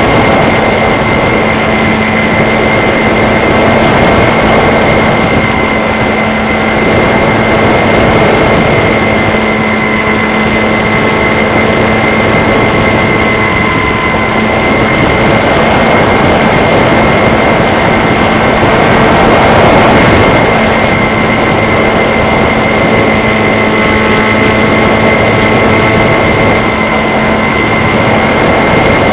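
RC model airplane's motor and propeller running loud and close at a steady pitch, with a steady high whine over a rushing noise and slight swells in loudness.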